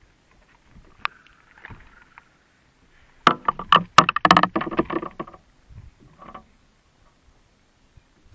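A rapid flurry of sharp knocks and thumps on a bass boat's deck close to the microphone, lasting about two seconds from about three seconds in, with one softer clatter a second later.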